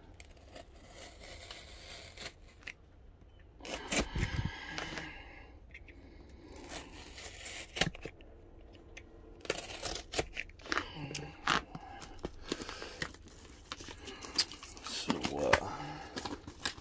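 A mailed package being opened by hand: packaging tearing and crinkling in irregular bursts, with scattered sharp clicks and knocks as it is handled.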